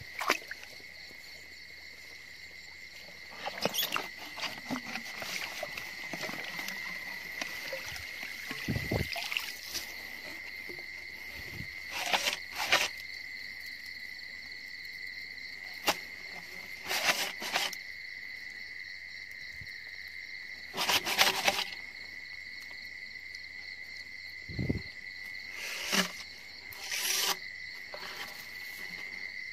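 Night insects, crickets, keep up a steady high trill. Over it come several short bursts of rustling and brushing through dry grass and reeds.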